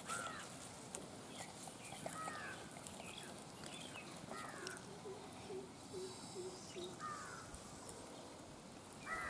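Birds calling: about five short, arched calls, one every two seconds or so, with a quick run of about six short low notes about two-thirds of the way through.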